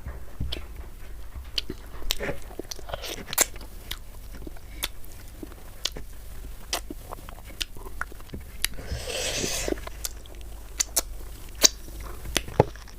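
Close-miked chewing of rice and chicken curry: many short wet mouth clicks and smacks, with one longer rushing noise about nine seconds in.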